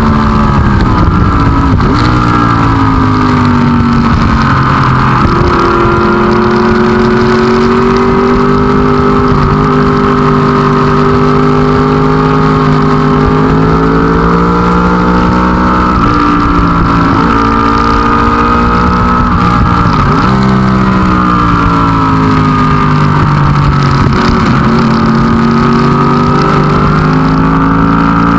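Racing engine at high revs on a road course, sustained and loud, its pitch dropping sharply at each of several gear changes and then climbing again.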